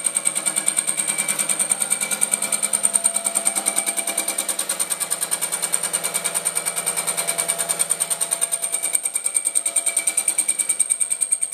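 Grizzly G0695 vertical milling machine running, a rapid, even mechanical pulsing over a steady high whine.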